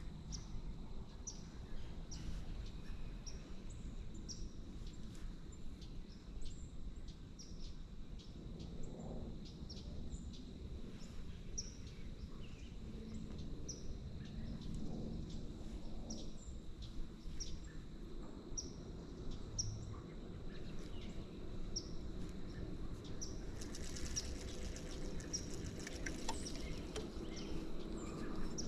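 A small bird chirping again and again, short high chips about once a second, over a steady low outdoor rumble.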